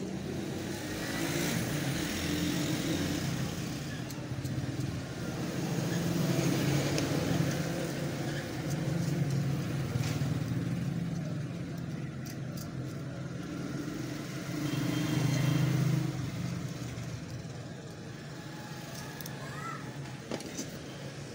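Low rumble of engines from road traffic, swelling and fading, with a few faint clicks of small screws and plastic plug parts being handled.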